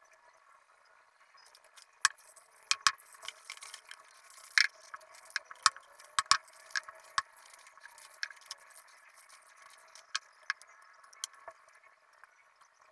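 Irregular sharp clicks and clinks of spray-painting tools handled on a work table: a round metal lid, cardboard and spray cans picked up and set down. The clicks bunch between about two and eleven seconds in, over a faint steady hum.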